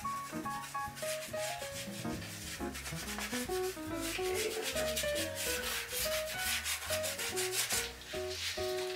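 Paintbrush scrubbing acrylic paint onto a canvas in quick repeated strokes, over soft background music.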